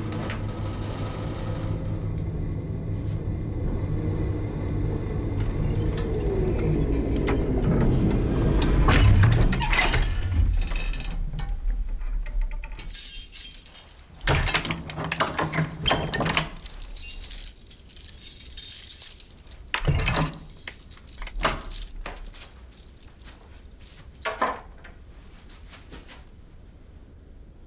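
A low drone whose tones slide down in pitch and fade, then a ring of old metal keys jangling and rattling at a door lock, with a few scattered clicks and knocks.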